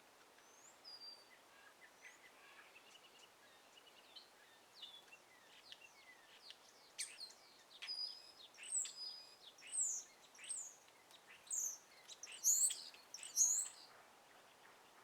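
Wild songbirds chirping and calling in quick, high-pitched notes and short trills, scattered at first and then busier and louder from about halfway through, over a faint outdoor hiss.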